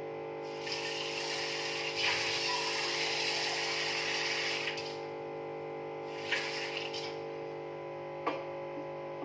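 Tap water running into a sink or vessel, starting about a second in, growing louder, then shut off after about four seconds. A couple of light knocks follow, over steady background music.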